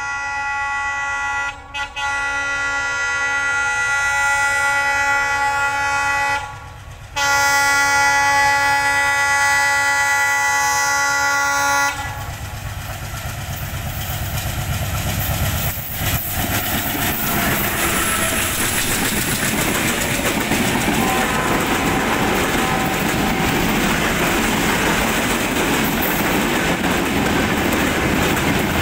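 Diesel locomotive's horn sounding in long blasts, with a short break near the start and another about halfway through the first twelve seconds. Then the rumble and wheel clatter of the passenger train, growing as it nears and passes close by.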